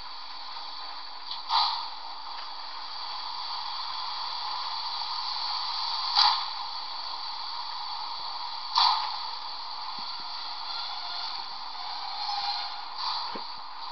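Model railway layout running, a steady hiss with a short louder rush about every three to five seconds.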